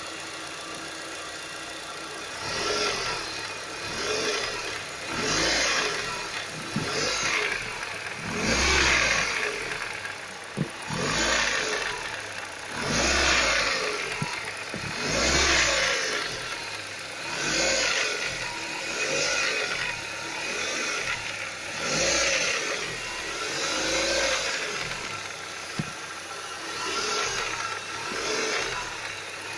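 Ford Focus 1.6 eight-valve engine being revved in short blips, about one every two seconds from a couple of seconds in, falling back between them. The owner says the rattle comes from the top of the engine and appears as the throttle is released, and suspects the piston group: rattling piston pins or piston slap.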